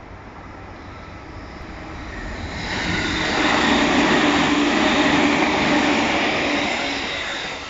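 JR East 209 series 2200-subseries B.B.BASE electric train passing through the station at speed without stopping. The sound swells to its loudest about halfway through, then fades near the end.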